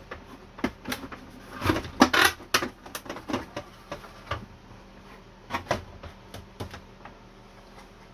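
Sewing machine clamshell carrying case being pushed together around the machine: a string of hard knocks and clacks, busiest and loudest about two seconds in, with a few more later. The halves are not clicking shut on one side.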